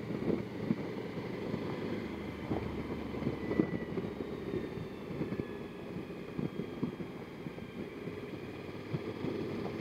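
Wind buffeting and road rumble from a Suzuki V-Strom 1000 motorcycle ridden at moderate speed, picked up by a helmet-mounted action camera's microphone, with steady flutter from air coming off the windshield.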